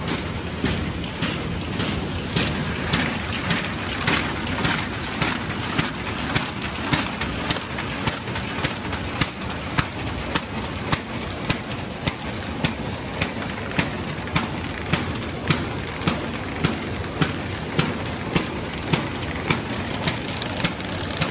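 Kraft paper bag making machine running: a steady mechanical drone with a sharp, regular clack about twice a second.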